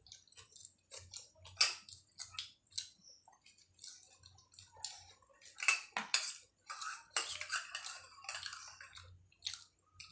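Metal spoon clinking and scraping against ceramic bowls while eating, a scatter of short sharp clicks with a denser scraping stretch about seven seconds in.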